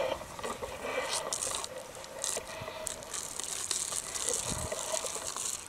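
Irregular rustling and crackling, a run of short scraping, crunching noises.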